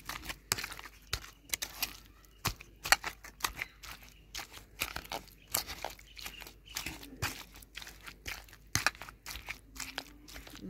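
Eggplant, onion and green chillies being mashed by hand in a metal bowl: irregular wet squelches and sharp clicks, several a second.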